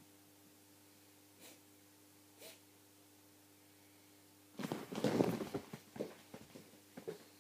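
A dog sniffing in a short noisy burst of about a second and a half, starting a little past halfway, followed by a few soft clicks; before it, only faint steady hum.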